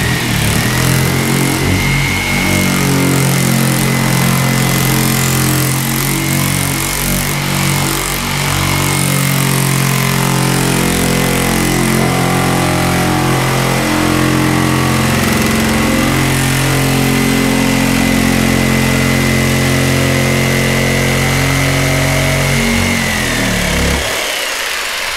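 Electric power saw running steadily as its blade cuts a circular hole in a race car hood, with a steady high whine over the motor; the blade's teeth are wearing out in the cut. The saw winds down and stops a second or two before the end.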